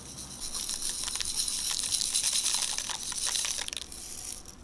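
Tiny metallic craft beads rattling as they are shaken out of a small pot into a bowl of slime: a fast patter of fine clicks that starts about half a second in and dies away near the end.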